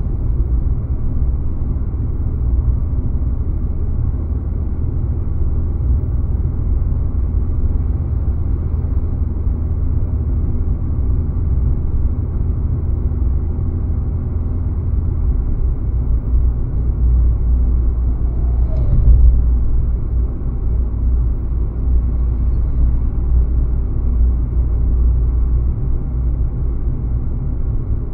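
A car driving along with a steady low rumble of road and engine noise. There is one brief knock about two-thirds of the way through.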